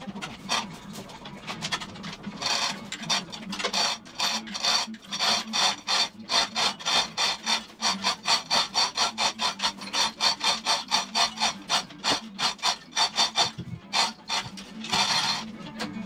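Manual chain hoist being worked as the bare 302 Ford small-block hanging from it is let down, its chain rattling through the hoist in quick, even rasping strokes, about four a second, with a short pause near the end.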